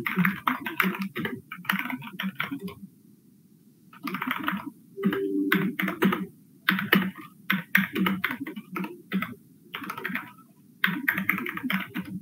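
Computer keyboard being typed on in quick bursts of keystrokes, with short pauses about three seconds in and again near ten seconds in, as shell commands are entered.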